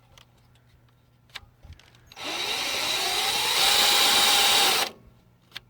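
Power drill spinning up and running for nearly three seconds, its motor whine rising in pitch and then holding steady before it stops, as a small bit bores into the shank of a broken bolt. A few faint clicks come before it starts.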